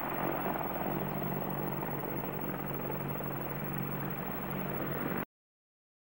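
AH-64 Apache attack helicopter in flight, a steady rotor and turbine noise with an even low hum under it. The sound cuts off abruptly about five seconds in.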